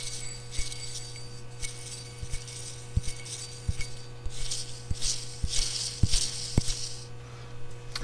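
Old serpentine-belt pulley from a Jeep 4.0 engine spun by hand, its bearing giving a high hissing rasp in three spells, with a few light knocks as the pulley is handled. The pulley is worn out: definitely time to replace it.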